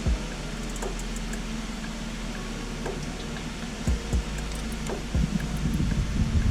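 Scattered metallic clicks and knocks from a hand tool working a 1/4 hex fastener on a motorcycle heel shifter, coming faster near the end, over a steady low hum.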